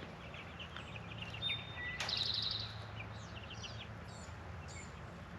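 Wild songbirds chirping and calling, with a brief rapid trill about two seconds in, over a steady low outdoor background hum.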